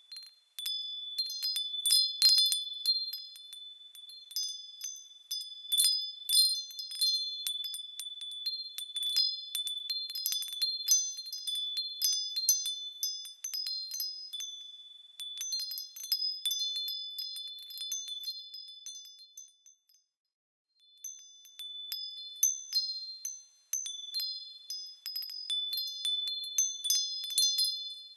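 Small metal bells swaying and ringing, many high, clear tones overlapping. The ringing stops briefly about twenty seconds in, then resumes.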